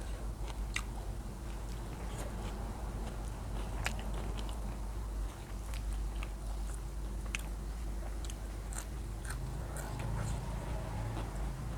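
Close-miked mouth sounds of a person eating: chewing and crunching food, with many small irregular clicks and crunches, over a steady low hum.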